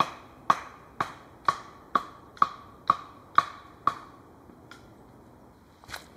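A tool striking wood in a steady rhythm: nine sharp knocks about two a second, each with a brief ringing tone, stopping about four seconds in.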